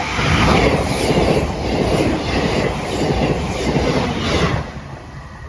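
Train passing over a level crossing at speed, a loud rush of wheel-on-rail noise with repeated wheel clicks over rail joints, dropping away near the end as the train clears the crossing.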